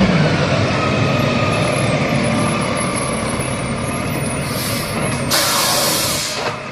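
Rear-loading garbage truck's engine running steadily, with a loud hiss of air from its air brakes for about a second near the end.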